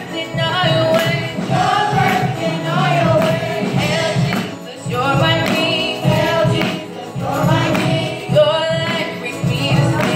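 Youth gospel choir singing through microphones, in phrases of a second or two that run on without a break.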